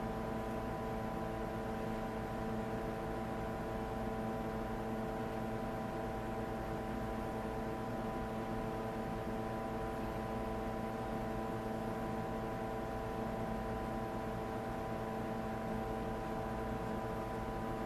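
Steady machine hum: a drone of several constant tones over an even hiss, with no change in pitch or level.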